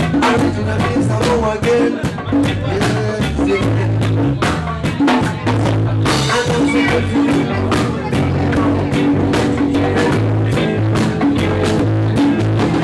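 Live band playing: a drum kit keeping a steady beat under a repeating bass line, with guitar and men singing into microphones.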